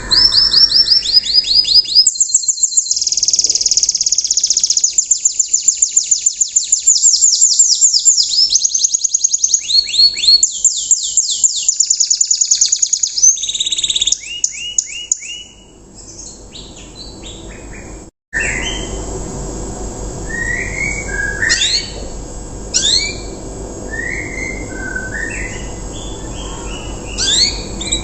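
Young domestic canary singing a riwikan song: for about the first fourteen seconds, fast trills of rapidly repeated high notes, then, after a brief break, sparser separate rising chirps.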